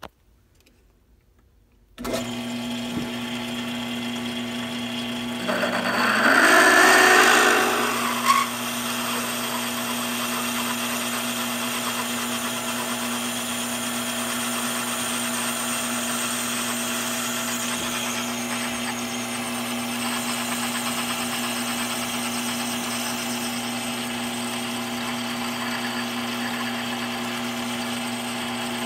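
A mini lathe starts up about two seconds in and runs with a steady motor-and-gear whine while a reamer is fed into the bore. About five seconds in the spindle steps up in speed, with a louder, noisier stretch lasting about three seconds before it settles back to a steady run.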